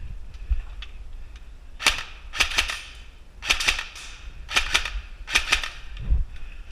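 Airsoft gun firing five short bursts of two or three sharp shots each, about a second apart, starting about two seconds in.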